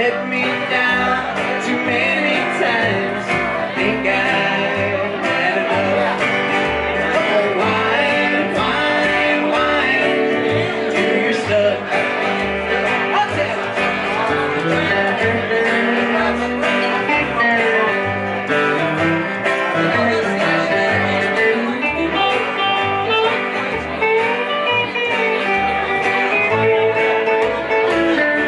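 Small band playing live: electric guitar and acoustic guitar over a plucked upright bass, in a country style.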